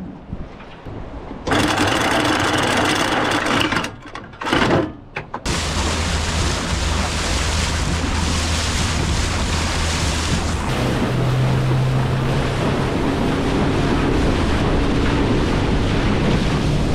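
Boat's outboard motor running under way, with wind and water rushing past. The first few seconds are broken bursts of rushing noise with short gaps, then the engine runs steadily, its note rising a step about eleven seconds in.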